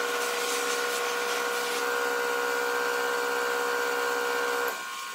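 Cloth buffing wheel spinning on a buffing motor, a steady whine over hiss, with a rubbing hiss in the first couple of seconds as the lacquered guitar body is worked against it. The whine cuts off near the end.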